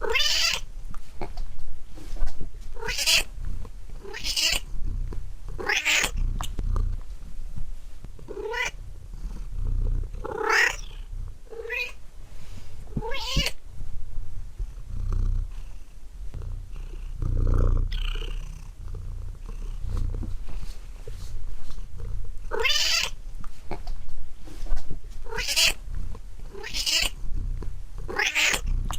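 Domestic cat meowing over and over, about a dozen separate meows with a quieter stretch in the middle, over a low purring rumble.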